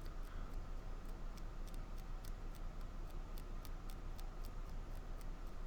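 Faint, quick light clicks, about three a second and not quite even, over a low steady hum.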